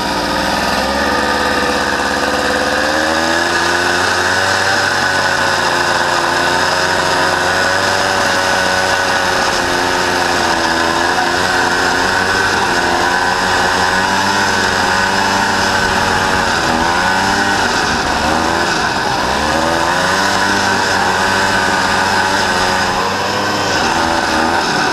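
Honda Odyssey FL350R buggy's single-cylinder four-stroke engine running loud under varying throttle while driven across snow, its pitch wavering up and down and dipping and picking up again a few times past the middle.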